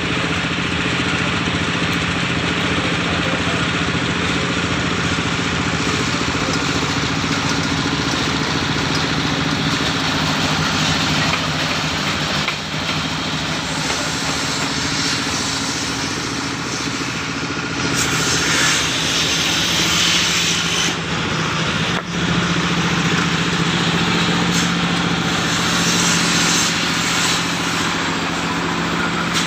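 An engine or motor running steadily with a constant low hum. A brighter hissing noise rises over it for a few seconds past the middle and again near the end.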